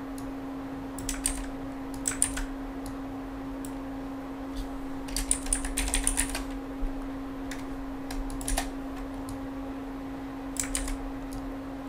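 Typing on a computer keyboard in several short bursts of key clicks, the longest run about five to six seconds in, over a steady low hum.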